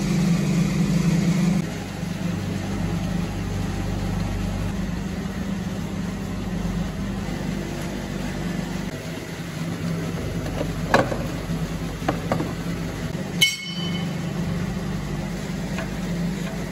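Steady low mechanical hum of workshop background, with scattered light metal clicks of tools and parts and one sharp ringing metal clink about two thirds of the way through.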